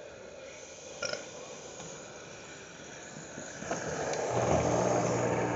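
Washing machine with water rushing in, a hissing noise that grows steadily louder; a steady low hum from the drain pump comes in about four seconds in. The machine is filling while it drains, which the owners take for a malfunction.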